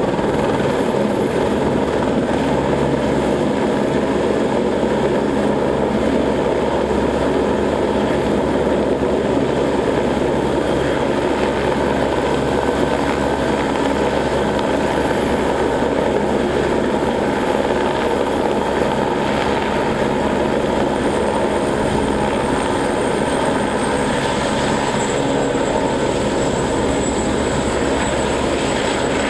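Orange County Sheriff's single-engine turbine helicopter sitting on the ground with its rotor turning, a steady loud rotor-and-engine din under a high turbine whine. The whine steps down slightly in pitch about four-fifths of the way through.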